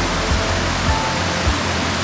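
Steady rush of water pouring over a slide waterfall on a mountain stream, with irregular low thumps in the water noise.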